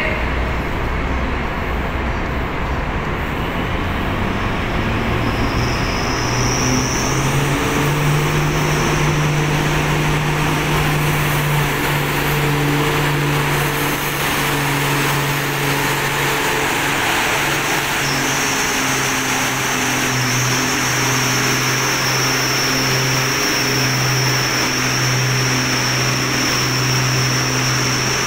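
Heavy diesel engine of a tractor-trailer loaded with steel reinforcing bars, running under load as the truck drives onto the ro-ro ship's deck and comes close; its pitch rises about seven seconds in and then holds steady. A thin high whine runs above it for much of the time.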